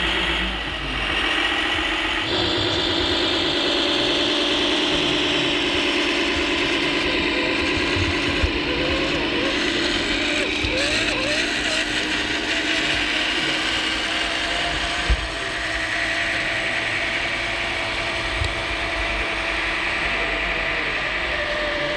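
Radio-controlled hydraulic construction models working, their electric motors, gearboxes and hydraulic pumps whining steadily in several tones, with brief rising and falling whines about ten seconds in. A sharp knock twice.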